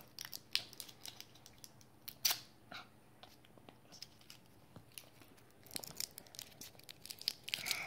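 Faint crinkling and tearing of a plastic candy-roll wrapper being picked open by a child's fingers: scattered crackles, coming thicker near the end.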